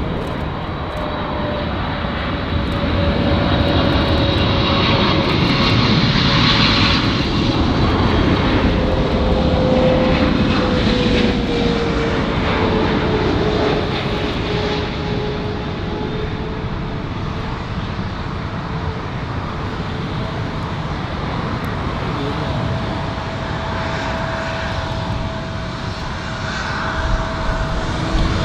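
Jet airliner engines passing close, the engine noise swelling about three seconds in and easing off after about twelve seconds, with a whine that slowly falls in pitch as the aircraft goes by. A second steady engine whine comes in about two-thirds through.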